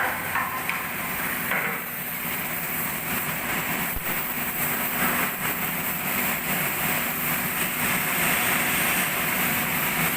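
Steady mechanical din of shipyard workshop machinery, with a single sharp knock about four seconds in.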